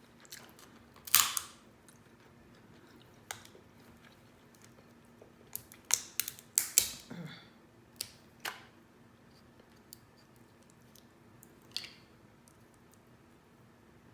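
Close-up eating sounds from eating seasoned crab legs: scattered wet mouth smacks, sucks and clicks. The loudest comes about a second in, and there is a cluster of them around six to seven seconds in.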